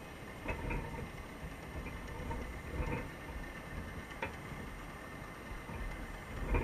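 Underwater noise picked up by a GoPro sealed in its waterproof housing inside a submerged crab trap: a steady muffled low rumble with a few sharp clicks and taps scattered through it.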